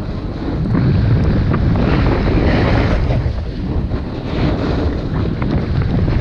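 Wind buffeting the microphone of a snowboarder's action camera during a fast downhill run: a steady low rumble. A hiss from the board's edge carving through snow swells on each turn, about every two seconds.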